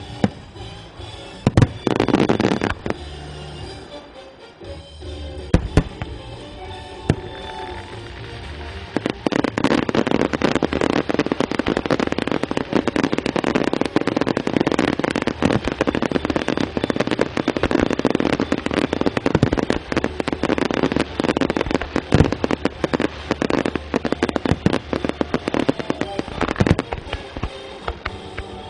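Fireworks show set to music: a few separate loud bangs in the first seconds, then from about nine seconds in a dense, continuous barrage of bangs and crackling over the music.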